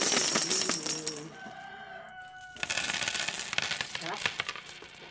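Crisp unripe green mango being chewed close to the microphone: loud, crackly crunching in two bouts, the second starting about two and a half seconds in after a brief quieter gap.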